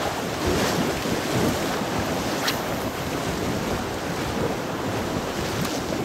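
Wind buffeting the microphone over the steady wash of small sea waves on the shore, with one short click about two and a half seconds in.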